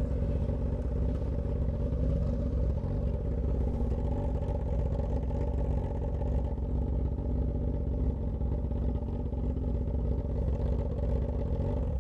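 Straight-piped Suzuki GSX-S1000 inline-four engine running steadily at low revs, a deep, even exhaust pulse with no revving.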